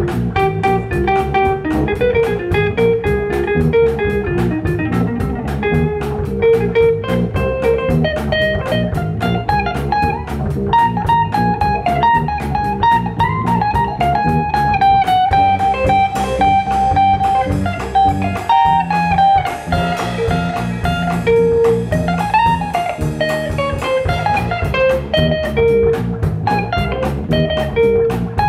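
Instrumental blues break: a guitar plays a melodic lead with bent notes over a bass line and a steady beat.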